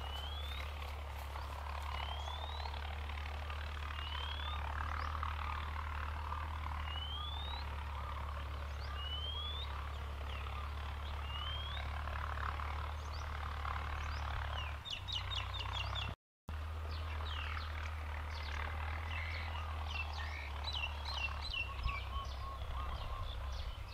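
Champ YTO 454 tractor's diesel engine running under load while ploughing, heard from afar as a low steady drone. Over it a bird gives a rising whistle about every two seconds, and later many birds chirp. The sound drops out for a split second about two-thirds of the way through.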